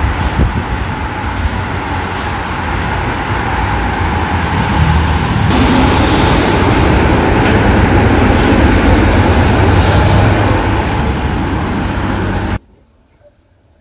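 Car driving: a steady, loud rumble and hiss of engine and road noise, cutting off suddenly near the end.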